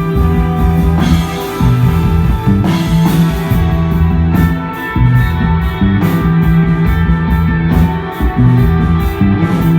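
Desert rock band playing live and loud, with no vocals: electric guitar over a bass holding long low notes, and a drum kit with steady cymbal hits.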